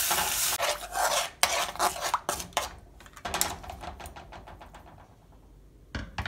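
Spoon scraping and stirring in a metal pan of jaggery melting in water, a quick run of scraping strokes over a fading sizzle for about three and a half seconds; then it goes quiet apart from two sharp knocks near the end.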